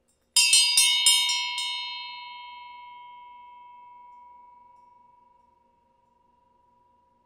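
Hand-cast tin-bronze bell (about 12.5% tin), its lip cracked and holed, rung with about six quick strikes and then ringing on as it slowly dies away, one high tone outlasting the rest. The casting flaw gives it a crazy, weird, distorted sound.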